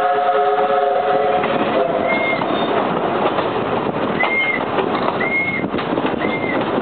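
Train whistle sounding a steady chord that stops about a second and a half in, then a passing train running with a steady rumble. Short high squeals come several times, about a second apart.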